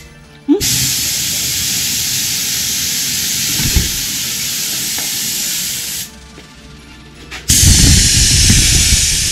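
Compressed air hissing out of an aftermarket air suspension system as it is deflated, in two long releases: the first starts with a click about half a second in and stops about six seconds in, and the second, louder and rougher, starts about a second and a half later.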